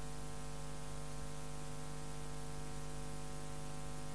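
Steady electrical hum with a stack of evenly spaced overtones over constant hiss.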